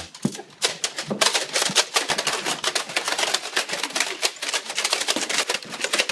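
Several Nerf blasters firing foam darts in quick succession: a dense, overlapping run of sharp clicks and pops, several a second, as darts are launched and strike.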